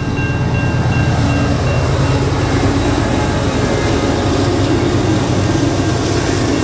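Diesel-electric locomotives of a long iron ore train passing at close range, a loud, steady engine rumble.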